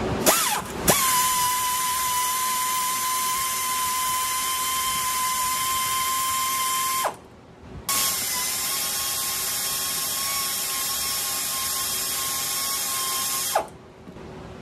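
Pneumatic air ratchet running at a steady high whine, removing fasteners from a removed oil filter housing. It gives a short blip, then two long runs of about six seconds each with a brief stop between them.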